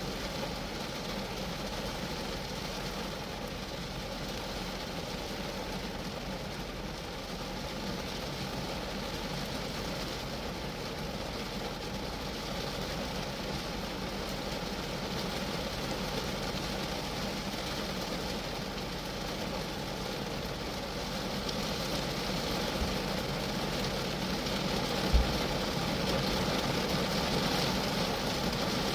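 Rain falling steadily on a Geo Metro's roof and body, growing slightly heavier toward the end. A single sharp, low knock sounds about 25 seconds in.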